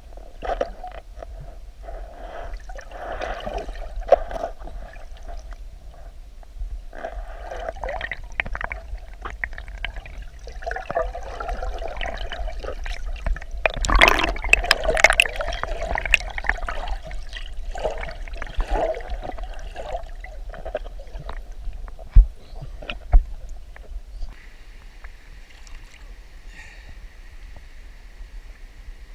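Water splashing and gurgling in irregular bursts, with scattered sharp clicks and two loud knocks about three quarters of the way through; near the end it settles into a steady hiss of running water.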